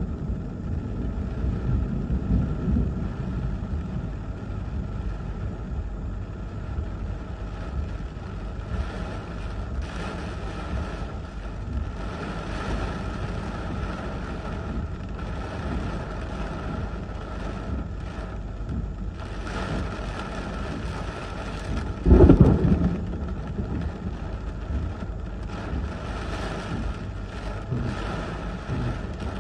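Heavy rain and gusting wind of a severe thunderstorm, heard from inside a vehicle: a steady low rumble, with a sudden loud low thump about 22 seconds in.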